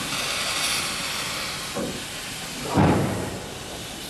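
Steam hissing from the cylinder drain cocks of a Bagnall industrial saddle tank locomotive, fading after the first couple of seconds. A single short low thump comes about three seconds in.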